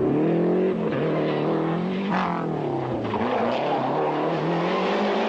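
Rally car engine running hard, its pitch dropping and climbing again several times as the driver shifts gears and lifts and accelerates.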